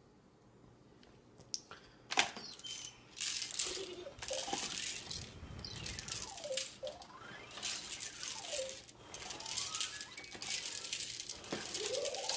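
Plastic spoon stirring and scraping noodles in a stainless-steel bowl, a rapid, irregular clatter of clicks and scrapes that starts about two seconds in, with a few sliding squeaky tones in the middle.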